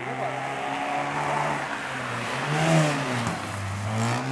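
A race car's engine pulling hard as the car comes up the straight and passes close by. The engine pitch climbs, drops about three seconds in, then climbs again, over tyre and road noise.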